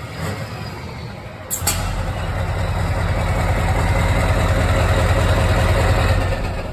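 Scania V8 diesel truck engine running, with a short sharp burst about a second and a half in; after it the engine grows louder and holds strong, easing off near the end.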